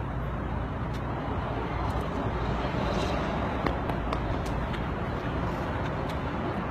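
Steady outdoor background noise, a low rumble and hiss like distant traffic, with a few faint light ticks scattered through it.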